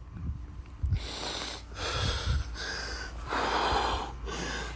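A man crying, with heavy, ragged breathing: several noisy breaths in a row.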